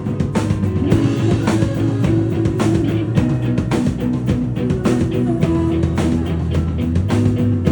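Rock band playing live: drum kit keeping a steady beat under bass and guitar, an instrumental passage with no singing.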